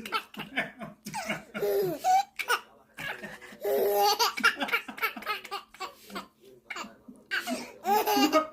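High-pitched laughter coming in repeated bursts, one peal after another with short breaths between.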